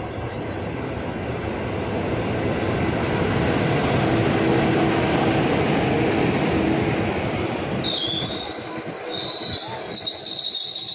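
Passenger train passing close at speed: the rumble and rattle of wheels on rail build to a peak about halfway through. From about eight seconds in, high, wavering metallic squeals ride over the noise as the coaches run past.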